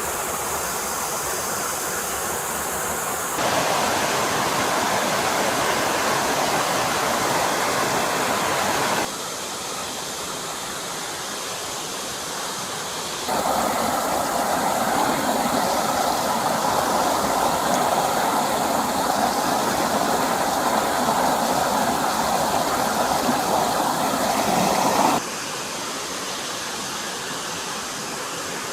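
Forest stream water flowing, a steady even rush with no other sounds on top. Its loudness steps abruptly up and down several times, as at cuts between shots.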